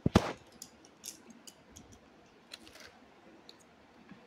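A loud knock right at the start, then scattered light clicks and rustles of plastic sketch pens, crayons and plastic-wrapped packs being handled.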